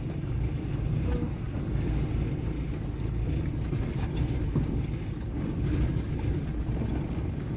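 A car running, heard as a steady low rumble.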